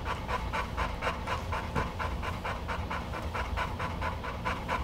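Pregnant Cane Corso panting rapidly and evenly, about five breaths a second: the heavy panting of a dog in labor during contractions.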